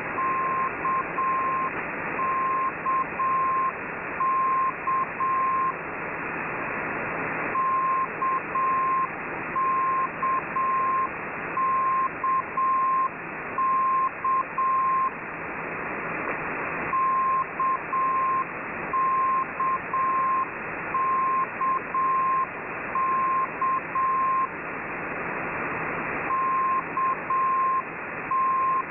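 Russian military single-letter propagation beacon 'K' received on shortwave at 20048.3 kHz: a steady beeping tone keys the Morse letter K (dash-dot-dash) again and again, in runs of several letters broken by pauses of about two seconds. Radio static hiss runs underneath and swells in the pauses.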